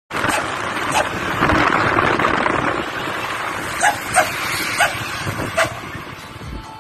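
A dog barking in short, separate barks, several of them in the second half, over a steady haze of road and traffic noise.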